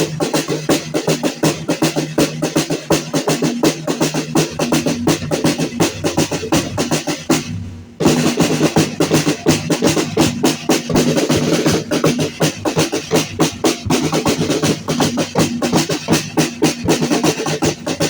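Dance music driven by a fast, steady drumbeat over a sustained low tone. It breaks off suddenly about seven and a half seconds in and starts again at once.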